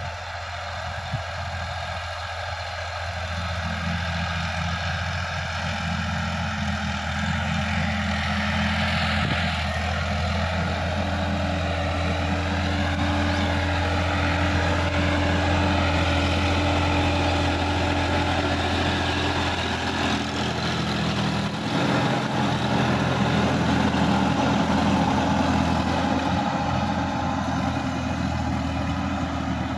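Sonalika DI-50 RX tractor's diesel engine running steadily under load while it drives a rotary tiller through dry soil. It grows louder over the first several seconds and eases slightly near the end.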